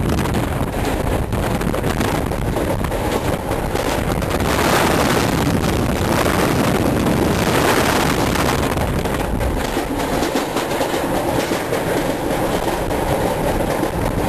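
Train running, heard from on board: a steady rumble of wheels on rails with a fast run of rail-joint clicks, growing louder for a few seconds around the middle.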